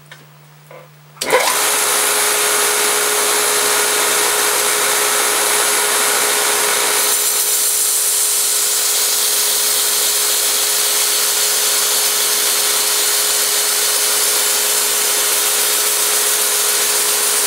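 Bader 3 belt grinder switched on about a second in, then running steadily with a hum and a hiss while a knife's edge is sharpened on the slack part of a 220-grit belt. About seven seconds in the sound changes, its middle part dropping away.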